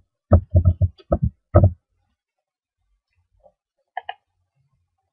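Computer keyboard typing: a quick run of about seven keystrokes in the first two seconds, then a faint double mouse click about four seconds in.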